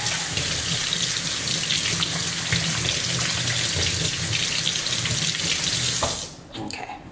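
Kitchen faucet running into a stainless steel sink as hands are rinsed under the stream. The water cuts off about six seconds in, leaving only a few faint wet handling sounds.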